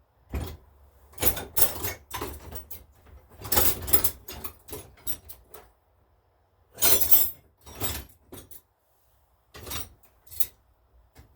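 Metal hand tools clinking and clattering in bursts, with short pauses between, as someone rummages through a toolbox looking for a small ratchet.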